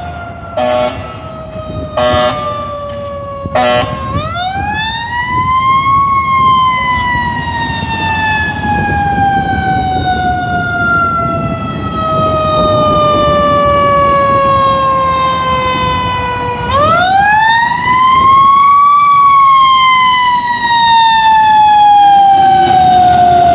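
Fire truck responding: three short air-horn blasts in the first four seconds, then its Federal Q mechanical siren winds up, coasts slowly down in pitch, and winds up again about two-thirds of the way through, over the low rumble of the truck's engine.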